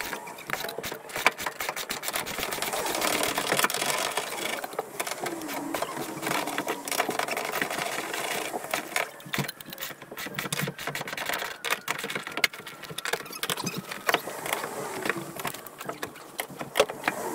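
Ratchet wrenches clicking in quick irregular runs as bolts are worked loose from a van's floor, with occasional knocks of tools and metal parts on the floor.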